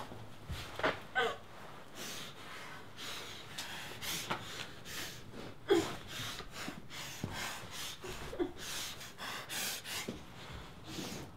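A woman gagged with tape over her mouth breathing hard in quick, noisy snorts and gasps through her nose. A few short moans come through the gag, about a second in, near the middle and again a little later.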